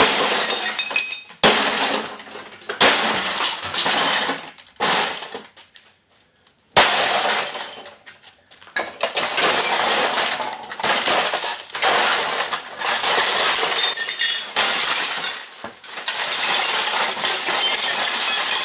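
Glass of an old Sylvania tube television being smashed: repeated heavy blows, each followed by shattering and tinkling glass. There is a short lull about six seconds in, then the crashing becomes almost continuous.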